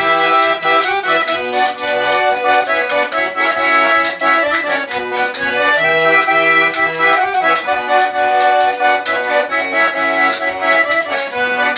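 Accordion playing an instrumental interlude between sung verses of a song, held chords and melody notes over a steady clicking beat.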